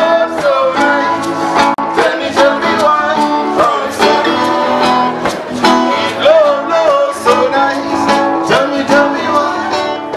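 Live acoustic guitar strumming with singers on microphones, playing a song; the music begins to fade near the end.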